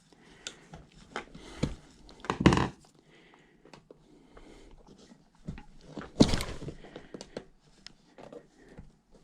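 Tire spoons and a stiff tire being worked against a bicycle wheel rim: scattered clicks and knocks, with two louder thunks about two and a half and six seconds in.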